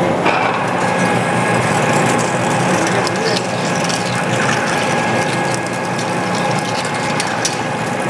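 Large metal lathe running with a big twist drill boring into the end of a sawmill mandrel under flood coolant: a steady machine noise with a dense crackle of chips being cut.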